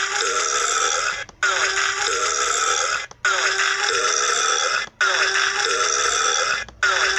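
A burp sound clip played on a loop: the same short clip repeats about every 1.8 seconds, with a brief cut between repeats.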